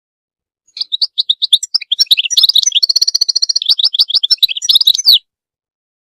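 European goldfinch singing a rapid, twittering run of high chirps, with a fast trill in the middle. The song starts about a second in and cuts off sharply near the end.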